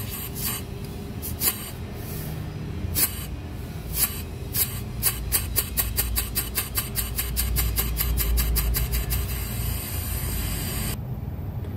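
Panasonic inverter air conditioner's outdoor compressor running with a steady low hum, under a hiss of gas at the manifold gauge hoses that cuts off about eleven seconds in. A series of sharp clicks comes faster and faster through the middle.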